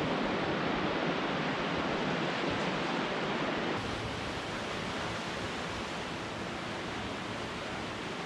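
Steady rush of ocean surf, a little quieter from about four seconds in.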